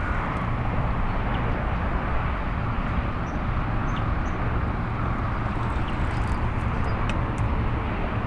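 Steady low outdoor rumble with a few faint, short high ticks or chirps.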